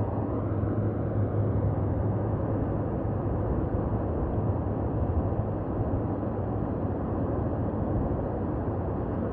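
Steady rush of water pouring through a spillway, with a low rumble underneath.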